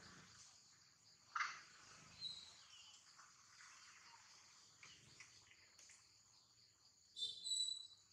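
Steady, high-pitched insect chorus from the forest, with a few short chirping calls over it: a sharp one about a second and a half in, and a louder run of chirps near the end.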